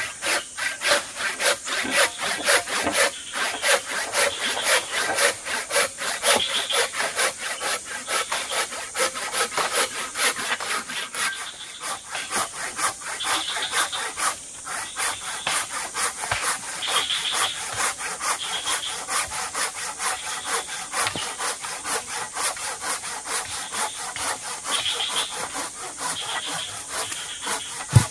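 Hand saw cutting through wood with steady, even back-and-forth strokes, the piece being cut to length. A single sharp knock comes at the very end.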